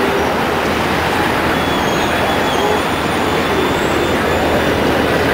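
Steady, dense city street noise: cars, taxis and buses moving through an intersection, mixed with the murmur of pedestrians crossing.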